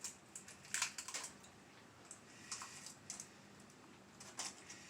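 A few light, scattered clicks and taps from handling kitchen things at a counter, about seven spread unevenly across the stretch.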